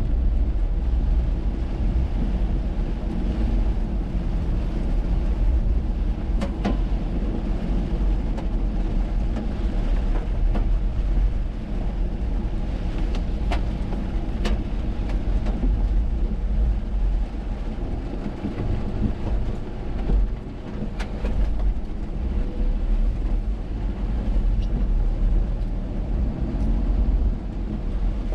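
A car driving on wet roads in heavy rain: a steady low rumble of engine and tyre noise, with a few sharp ticks scattered through it.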